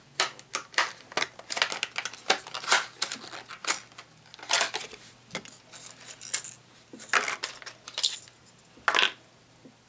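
Hard clear plastic clamshell lure packaging being handled and pried open: irregular crisp clicks and crackles of the plastic, with the clearest snaps about four and a half, seven and nine seconds in.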